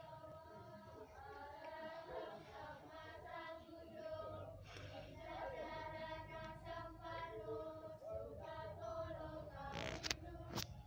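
A group of voices singing together in unison, with long-held notes moving slowly from one pitch to the next. There are a couple of sharp knocks near the end.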